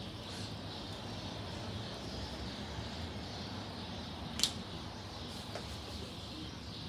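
Steady outdoor background hiss, with one sharp finger snap about four and a half seconds in.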